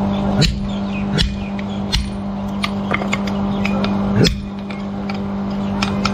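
A steady machine hum in a metal workshop, with sharp knocks striking at uneven intervals under a second apart.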